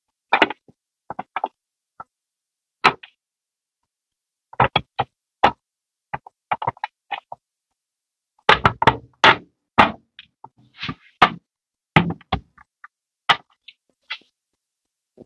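Irregular sharp clicks and knocks of toy van parts and rubber tyres being handled and fitted together on a wooden table, with silent gaps between and a thicker run of knocks about two thirds of the way through.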